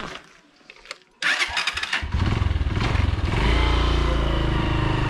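A small motorcycle engine is cranked over for under a second and catches about two seconds in. It revs up once, then settles into a steady run.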